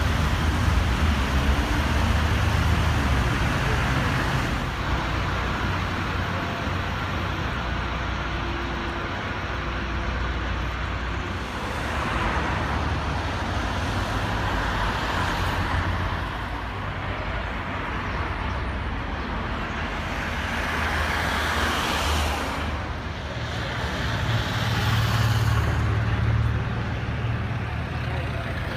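City road traffic: cars, taxis and buses running past with steady engine rumble and tyre noise, swelling several times as vehicles go by close.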